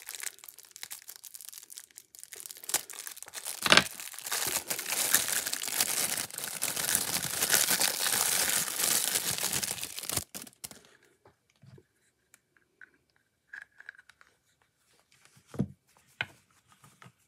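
Small clear plastic bag holding a pair of action-figure boots being crinkled and torn open by hand. The crackling runs dense for about eight seconds, with one sharp crackle about four seconds in. It stops about ten seconds in, leaving only a few faint taps.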